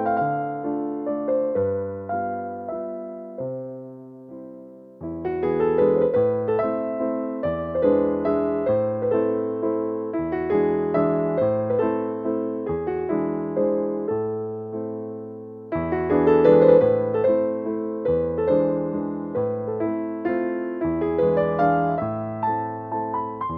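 Background piano music: a gentle melody of ringing, decaying notes over low bass notes. It dips briefly and starts a new phrase about five seconds in.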